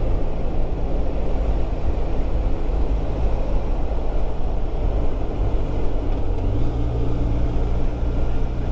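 Motorcycle engine running steadily on the move, with wind noise over it. The engine note steps up slightly about two-thirds of the way through.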